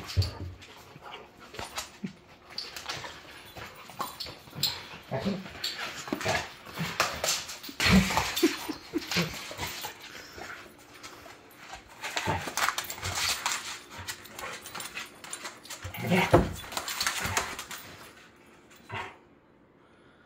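Two yellow Labrador retriever puppies play-fighting: a string of short, irregular dog vocal noises and scuffles, with louder bouts about eight and sixteen seconds in, dying down near the end.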